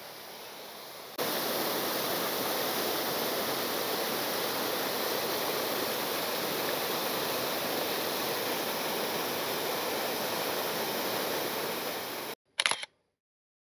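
Small mountain waterfall pouring, a steady rush of water that jumps louder about a second in. It cuts off suddenly near the end, followed by one short burst of noise.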